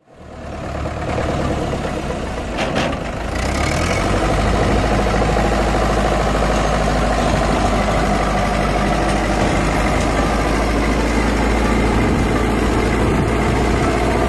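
HMT tractor's diesel engine running steadily under load while the tractor pushes soil with a front blade. The sound fades in over the first second or two.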